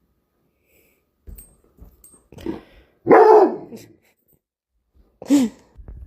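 Dog barking a few times, with the loudest bark about three seconds in and a shorter, falling bark after five seconds.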